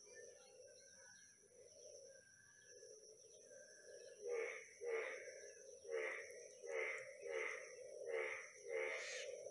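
An animal calling over and over outdoors, faint at first, then from about four seconds in a louder call repeating about twice a second, over a steady high-pitched whine.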